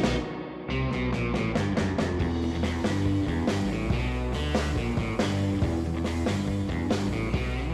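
Rock background music with guitar and a steady drum beat; it dips briefly about half a second in, then picks up again.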